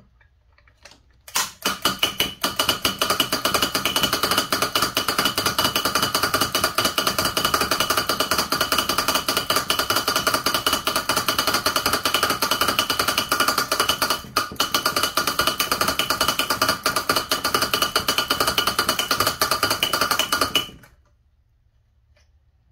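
A 1930 Rawlplug hand-cranked mechanical hammer drill hammering its bit into a concrete block: a fast, steady stream of metallic taps with a ringing tone. It starts about a second in, pauses briefly about two-thirds of the way through, and stops near the end.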